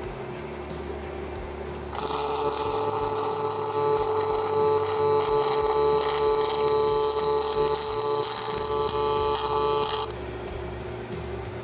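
MIG welding arc running as a bead is laid on the steel bender frame, a steady frying hiss. It starts about two seconds in, runs for about eight seconds and cuts off near the end, with the welder's quieter hum before and after.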